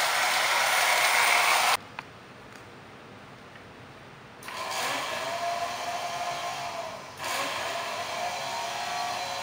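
Lionel Standard Gauge 392E steam locomotive and passenger cars running on tinplate track, a loud mechanical rattle of gears and wheels that cuts off abruptly about two seconds in. After a quieter stretch, a steady motor-like whirring with a faint wavering tone starts about four seconds in.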